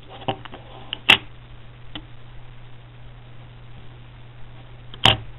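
Clear plastic coin capsules holding silver coins being handled by hand: a few sharp clicks and knocks, the loudest about a second in and near the end, over a steady low hum.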